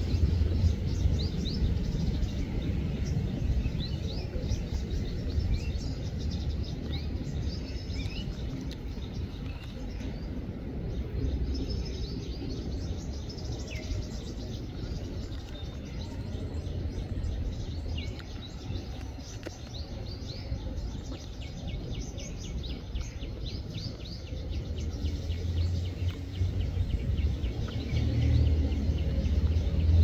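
Small birds chirping in the background: many short, high calls, with a quick run of them in the second half. Underneath is a steady low rumble, louder at the start and near the end.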